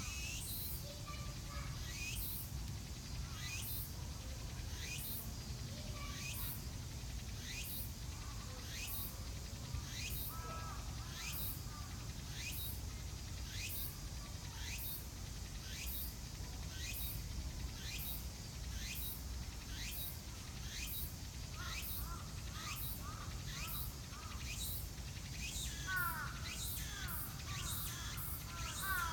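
Cicada singing in a repeated pattern of short falling phrases, a little over one a second, quickening in the last few seconds. A bird calls briefly near the end, over a steady low rumble.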